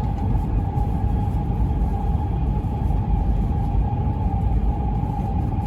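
Running noise of a Tohoku Shinkansen train heard inside the passenger car: a steady low rumble with a steady tone above it.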